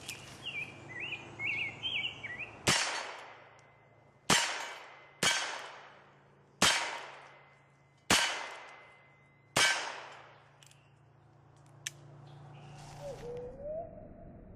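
Six gunshots from a Heritage Rough Rider single-action .22 revolver, fired one every one to one and a half seconds, each trailing off over about a second. Birds chirp briefly before the first shot.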